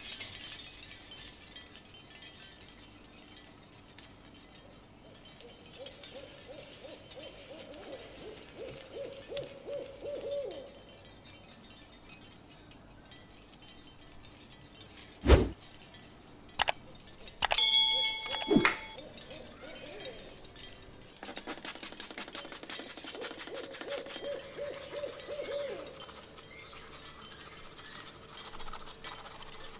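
Small metal toy-bike parts handled on a table: a single sharp knock about halfway through, then a brief metallic ring, with faint wavering squeaky sounds before and after.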